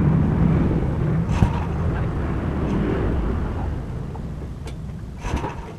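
Motorcycle-mounted diesel engine converted to run on petrol, running with a steady low rumble that gradually grows fainter, with a couple of brief sharp ticks.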